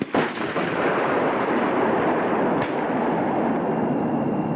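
Carl Gustav recoilless rifle firing: a sudden blast right at the start, then a steady rush of noise that cuts off abruptly near the end.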